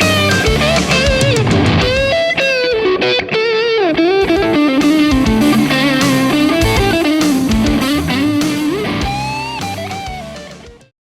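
Distorted electric guitar played through an amp-simulator preamp pedal and recorded direct: a lead phrase with string bends and vibrato over lower notes, fading out near the end.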